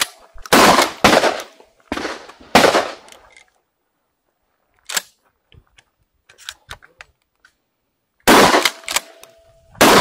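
Gunshots: four loud shots in quick succession in the first three seconds, each ringing out briefly. A smaller sharp crack comes about five seconds in, then a few faint clicks, and another loud shot near the end.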